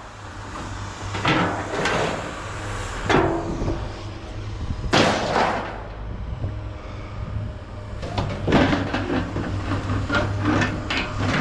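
Knocks, bangs and clatter of hard objects being handled and set down, with one loud bang about five seconds in and a run of rattling knocks near the end, over a steady low hum.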